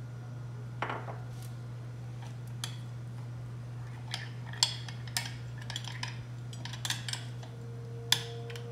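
A metal spoon clinking and scraping against a small glass dish as unflavoured gelatin and water are stirred together, in irregular taps that start about a second in, with the loudest clinks near the end. A steady low hum runs underneath.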